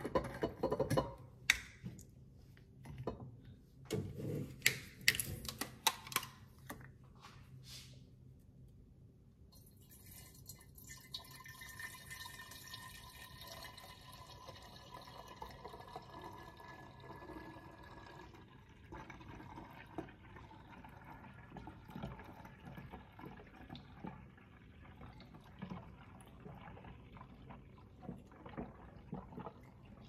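A few seconds of clinks and knocks as containers are handled, then water running and splashing steadily, growing quieter about halfway through.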